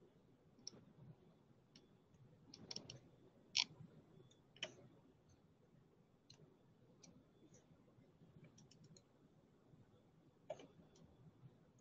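Near-silent room with scattered, irregular faint clicks of computer mice and keys, two of them louder about three and a half and four and a half seconds in.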